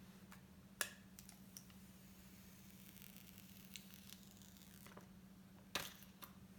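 Faint handling noise: two sharp taps or clicks, about five seconds apart, and a few lighter ticks and a soft rustle, over a steady low hum.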